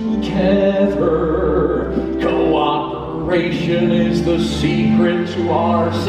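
Stage-musical song: singing over instrumental backing music.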